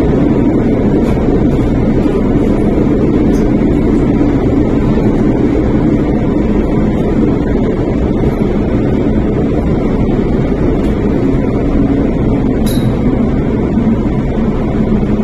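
In-car noise of an MTR Island Line M-Train running between stations: a steady, loud rumble of wheels and running gear that holds even throughout.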